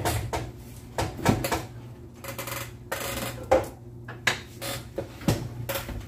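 Cookware clatter: a metal lid set onto a stainless steel saucepan and a stirring spoon knocked and laid down, several separate clanks and knocks. A steady low hum runs underneath.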